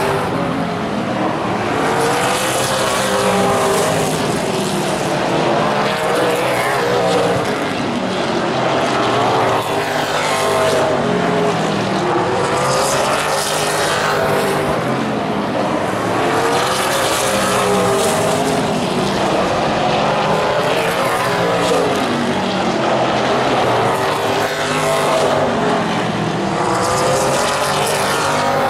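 A field of super late model stock cars racing on a short oval track, their V8 engines running hard. The engine pitch rises and falls over and over, every few seconds, as the cars come around.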